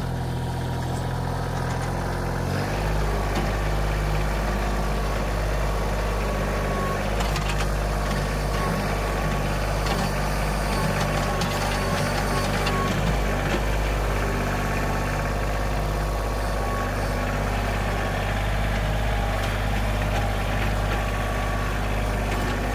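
Kioti compact diesel tractor engine running steadily while the front loader works a stump bucket into the ground to dig a hole. The engine note shifts about two and a half seconds in.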